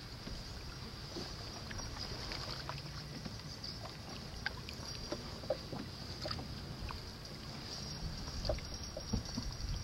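Wooden canoe being paddled: paddle blades dipping and pulling through the water with small splashes and drips, over a low steady rumble. A few sharper light knocks come near the end.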